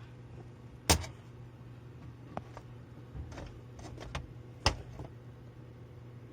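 Sharp clicks and knocks of hands working with wires, a screwdriver and a light fixture: two louder snaps, about a second in and about three quarters of the way through, with lighter taps between, over a faint steady low hum.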